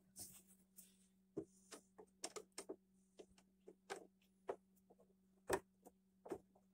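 Faint, irregular clicks and taps of a metal rail bracket and screw being handled against a plastic toddler bed frame during assembly, over a faint steady low hum.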